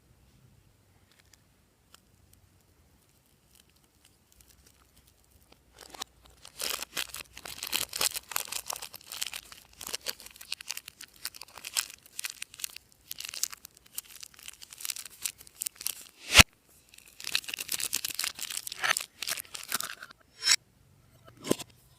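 Slime being worked by hand, squished and stretched, giving a dense run of small crackles and pops that starts about a quarter of the way in. There are short pauses and one sharp pop about three quarters through.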